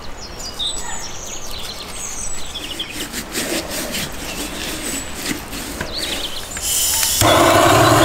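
Hands rubbing coarse salt into the skin of a raw duck, with birds chirping. Near the end a handheld gas torch starts with a sudden hiss, then runs loudly and steadily.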